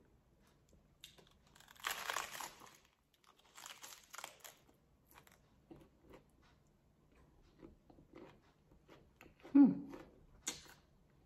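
Biting into and chewing a lettuce-wrapped bacon taco: crisp crunching of the lettuce, loudest about two and four seconds in, then quieter chewing crackles. A short low vocal sound near the end is the loudest moment.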